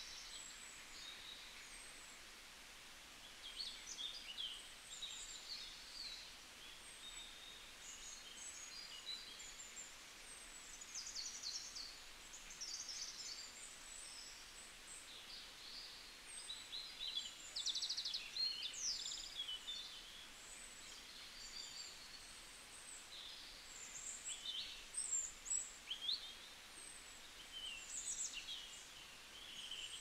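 Small birds chirping and trilling, many short calls and quick repeated notes, over faint outdoor background noise.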